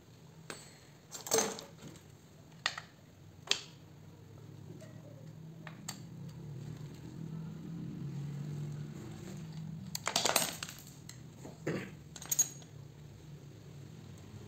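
A screwdriver clinking and tapping against the metal parts of a dismantled chainsaw: a handful of sharp, separate knocks, the loudest about a second in and a cluster about ten seconds in. A low hum swells and fades in the background in the middle.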